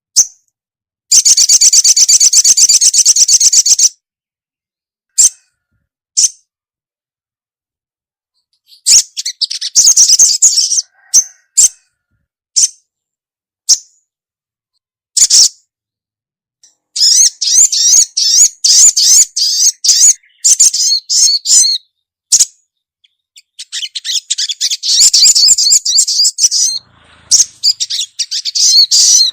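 Female crimson sunbird (sogok ontong) calling: rapid high-pitched chattering trills a few seconds long, with single sharp chips in the gaps between them.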